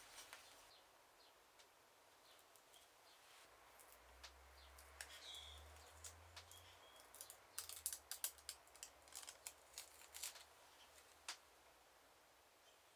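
Very quiet handwork, then, past the middle, a few seconds of small sharp crackles and clicks as a strip of gold foil held on with tape is peeled off a freshly gold-tooled leather book spine.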